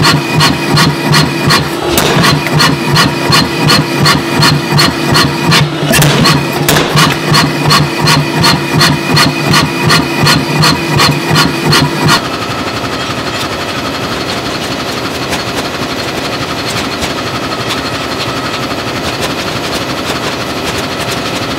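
Power hammer striking a red-hot steel hammer-head billet through a spring fuller in rapid, even blows over the machine's steady hum, forging the troughs into the hammer head. The blows stop abruptly about twelve seconds in, leaving a steadier, quieter mechanical running noise.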